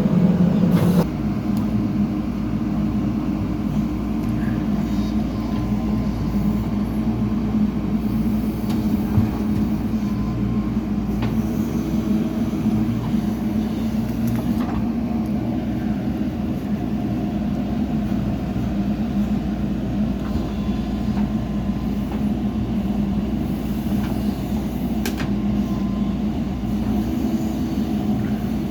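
Heavy diesel machinery engine running steadily under work, a low continuous drone, louder for about the first second. A few faint clicks sound over it.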